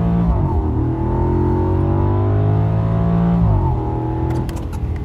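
Audi S8's 5.2-litre V10 under hard acceleration, its note climbing steadily in pitch and dropping at upshifts just after the start and about three and a half seconds in. It eases off near the end.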